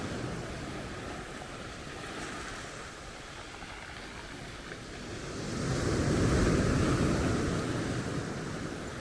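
Sea waves washing onto a shingle beach: one wave surges in about halfway through, loudest a second later, then draws back.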